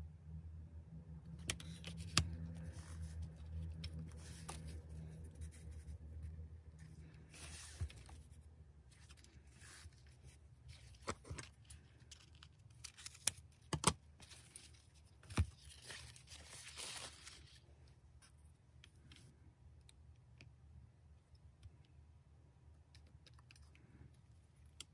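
Grosgrain ribbon and a plastic ruler being handled on a cutting mat: rustling and scraping of the ribbon, with scattered sharp clicks and taps. A low hum runs under the first several seconds.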